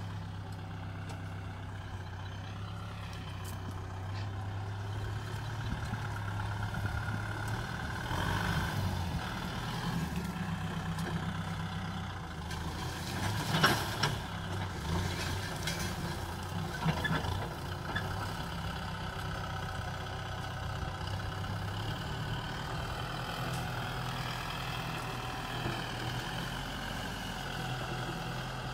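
Kubota M6040SU tractor's diesel engine running steadily as the tractor works a ploughed field, its note shifting about a third of the way in. A sharp clank comes near the middle, and a smaller one a few seconds later.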